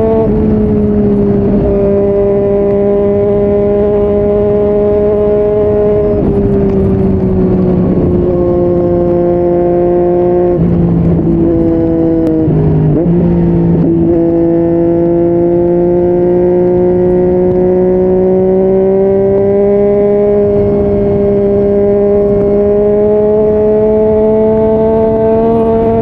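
Yamaha MT-09's three-cylinder engine through a Yoshimura R55 slip-on exhaust, ridden at steady road speed. The note drops suddenly about six and about ten seconds in, wavers down and back up around twelve to fourteen seconds, then rises slowly through the rest.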